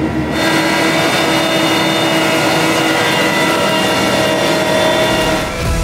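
Farm sprayer's engine running steadily in the field, with a constant mechanical whine over it; a louder hiss joins about half a second in.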